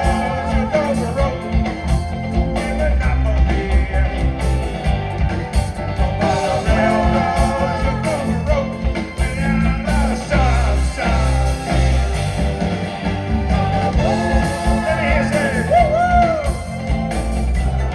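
Live rock band playing with a lead vocal, guitar and a steady bass and drum beat.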